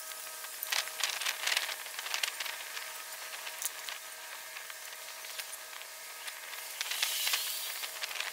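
Rustling and handling noise as camping gear and a jacket are picked through, in a bout near the start and another near the end, over a steady background hiss with a few faint steady tones.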